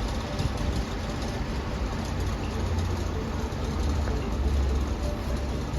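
Wind gusting ahead of a summer storm, a steady rushing with an uneven low rumble of wind buffeting the microphone that swells a few times.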